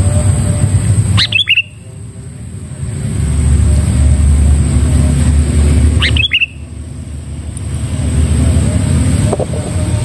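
Sooty-headed bulbul giving two short harsh calls, about a second in and again about five seconds later, over a steady low rumble.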